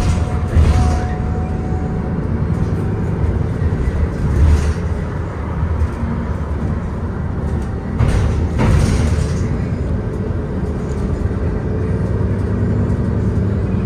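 Cabin ride noise aboard a 2021 Nova Bus LFS hybrid transit bus under way: a steady low drivetrain and road rumble, broken by a few brief rattles and jolts, the strongest a little past the middle.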